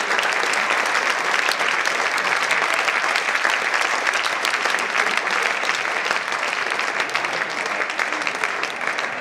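Audience applauding: dense, steady clapping from many hands, easing off slightly near the end.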